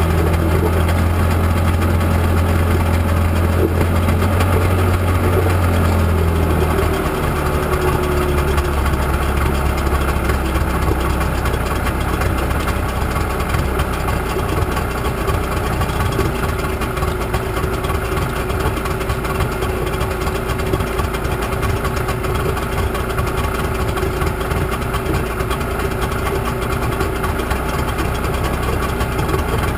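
Selva 45 hp outboard motor idling with its leg in a barrel of water, restarted after more than a year unused, with the idle turned up on both carburettors. Its note drops about seven seconds in and settles to a lower steady idle.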